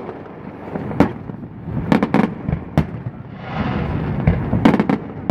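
Aerial fireworks bursting: a series of sharp bangs about a second apart, with a spell of dense crackling about three and a half seconds in.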